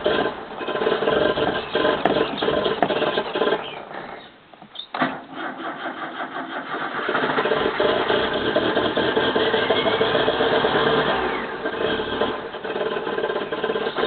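The carburetted four-cylinder engine of a 1985 Toyota Corolla being cranked through a hard cold start with the accelerator pumped. The sound dies away about four seconds in, a click follows, and it starts up again and runs on steadily. The uploader puts the hard starting down to the choke not being on.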